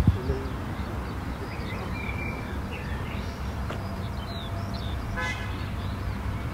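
A vehicle engine running with a steady low rumble, a short horn toot about five seconds in, and birds chirping.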